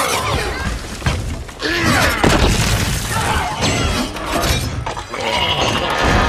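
Film battle sound effects of a giant robot being hit: metal crashing and shattering, repeated heavy impacts and sliding mechanical whirrs, with film music underneath.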